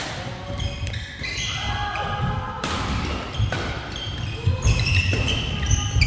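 Badminton doubles rally on a wooden indoor court: several sharp racket strikes on the shuttlecock, with sports shoes squeaking and feet thudding on the floor between them.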